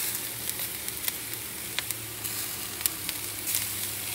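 Chicken thighs sizzling on a hot grill grate, a steady hiss broken by scattered sharp pops of spitting fat, with a faint steady low hum underneath.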